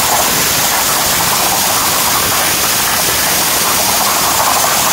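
CNC plasma cutter torch cutting through a metal sheet: a loud, steady hiss of the arc and its air jet, unbroken throughout.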